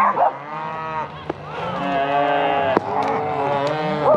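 Several cattle mooing at once: long, drawn-out moos at different pitches overlapping one another.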